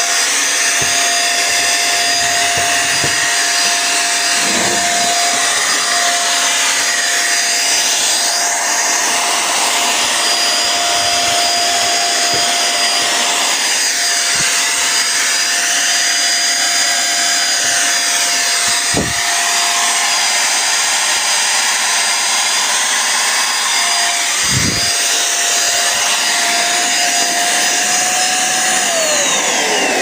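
Bolde Super Hoover Turbo handheld vacuum cleaner running with a steady high motor whine and strong suction, the motor working again after its repair. Near the end the whine falls away as the motor spins down.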